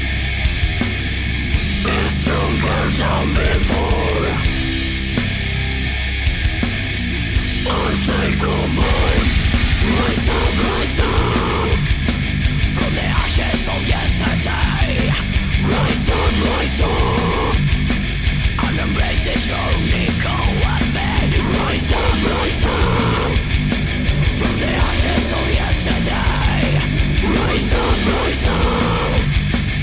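Loud heavy-metal style background music.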